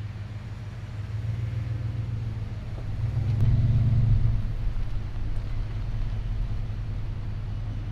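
A vehicle engine running with a steady low hum, swelling louder for a second or so about three seconds in.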